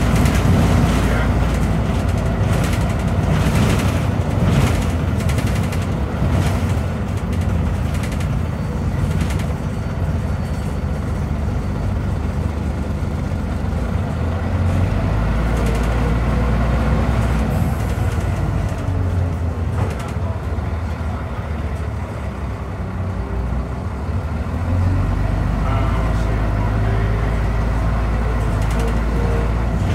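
Scania DC9 9.0-litre diesel engine and ZF Ecomat automatic gearbox of a Scania N94UB bus, heard from inside the saloon while under way. The engine note rises and falls around the middle and again near the end as the bus pulls and eases off through the gears.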